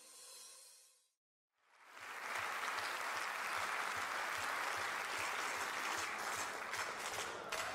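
An audience applauding, fading in about two seconds in and then holding steady, right after the last of the music dies away.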